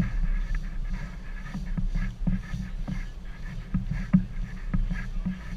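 Handling noise from an action camera on a pole carried by someone walking: a steady low rumble with irregular light knocks, a few each second.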